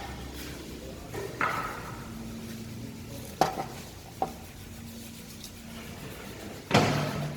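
Handling noises: a scrape about a second in, two sharp knocks a little under a second apart mid-way, and a louder rattling clatter near the end, over a faint steady hum.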